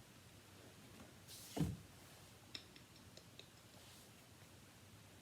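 Quiet room with faint handling noises: a soft thud about a second and a half in, then a few light clicks, as fidget toys are set down and picked up.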